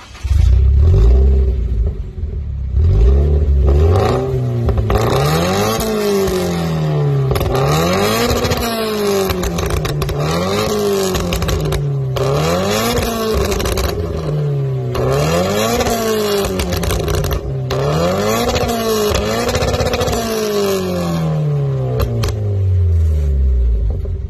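Toyota 86's flat-four boxer engine with an aftermarket downpipe exhaust, parked and free-revving: a low idle rumble at first, then repeated revs that climb and fall about once every two seconds, easing back to idle near the end.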